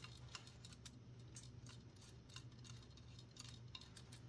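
Faint, scattered small clicks and ticks of tiny screws and plastic parts being handled while a film camera is taken apart, over a low steady hum.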